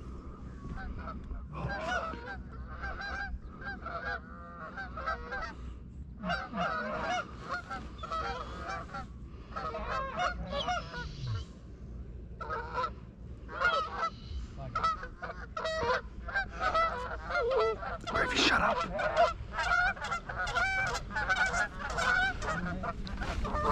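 Canada geese honking: many short honks in quick succession, some overlapping, densest in the last few seconds.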